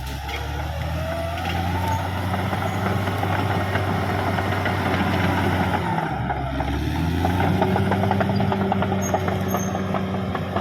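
Caterpillar D6R XL bulldozer's diesel engine running, a steady low drone with light clatter over it. The engine note dips briefly about six seconds in, then comes back up.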